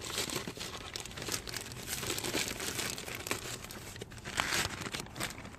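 Crinkling and crackling of a new cabin air filter and its packaging being handled and unwrapped, with many small irregular crackles.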